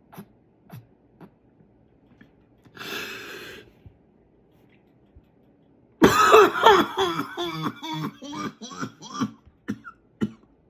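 A faint hiss lasting about a second, then from about six seconds in a loud run of strained coughing and throat clearing, the sound the no-cough challenge is meant to avoid.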